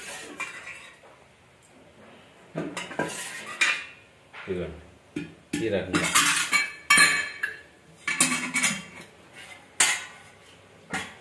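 Metal kitchen utensils and dishes clinking and clattering, a string of separate knocks with short pauses between, loudest around the middle.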